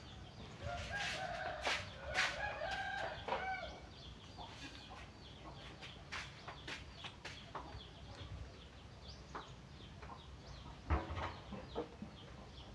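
A rooster crowing once, a single long call lasting about three seconds from just after the start. Faint clicks and taps follow.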